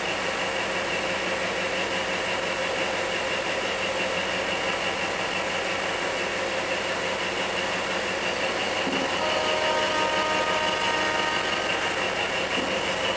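Sri Lanka Railways Class S11 diesel multiple unit running, a steady, dense engine and rail noise with a constant high whine. A faint held tone at several pitches joins for a few seconds about nine seconds in.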